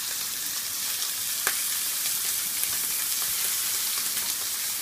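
Steak frying in a hot ridged griddle pan, its second side searing: a steady sizzling hiss with occasional crackles, and one sharper pop about a second and a half in.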